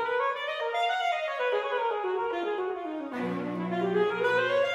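Saxophone playing quick melodic runs that rise and fall, with a cello coming in on low held notes about three seconds in.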